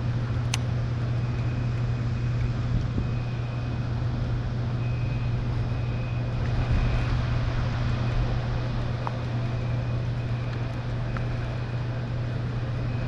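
Steady low motor hum under a constant hiss, with a faint high steady tone above it.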